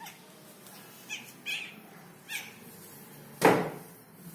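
Newborn puppies squeaking: three short, high-pitched squeals about half a second to a second apart, then one loud, sharp sound near the end, louder than the squeals.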